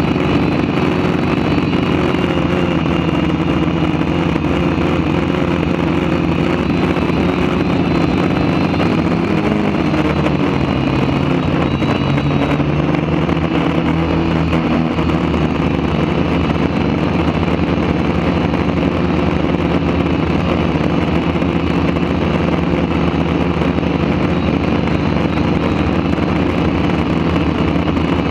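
Quadcopter's electric motors and propellers running steadily, heard through the camera mounted on the craft as a dense multi-tone hum, with the pitch shifting slightly about ten to fourteen seconds in.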